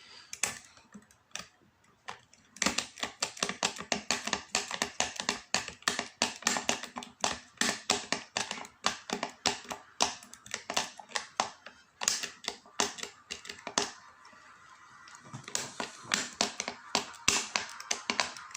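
Lever-lock picking tools clicking and tapping inside a curtained five-lever mortise lock as a small overlifter is worked against the levers: quick sharp metallic clicks, several a second, stopping for a couple of seconds about twelve seconds in, then starting again.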